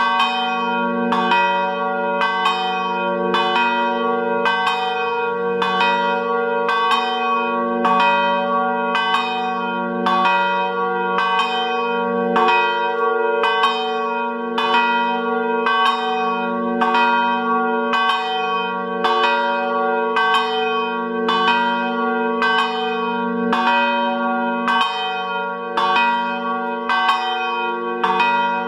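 Three church bells swinging and ringing together in an open belfry: a steady run of overlapping strikes, roughly three every two seconds, over a continuous hum of ringing tones. The ringing has an uneven, odd pattern that the recordist finds strange.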